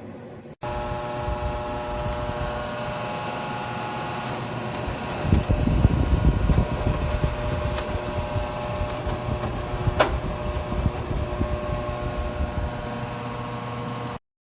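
AIRCARE MA mini-console evaporative humidifier running, its fan motor giving a steady hum with a few steady tones. A louder low rumble comes in about five seconds in, and there is a single sharp click about ten seconds in.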